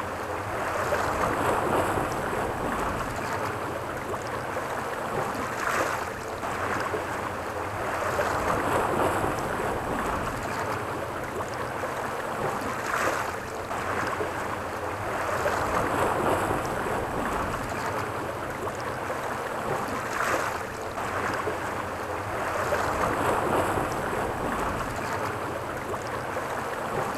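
Sea waves washing against a rocky shore, with wind on the microphone. A steady rush that surges about every seven seconds.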